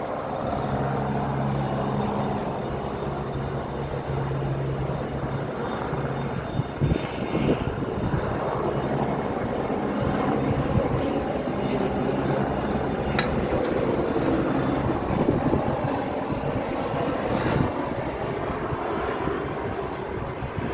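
Helicopters flying overhead: a steady drone of rotors and engines with a low hum that fades about halfway through.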